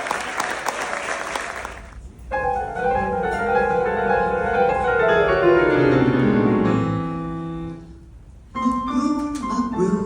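Applause dying away, then a solo piano introduction: chords and a descending run down the keyboard, a held chord that fades to a brief pause, and the piano starting again near the end.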